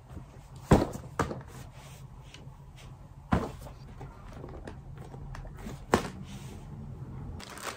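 Clothes being packed into an open hard-shell suitcase: soft rustling of fabric and bags, with four sharp knocks against the case, the loudest about a second in.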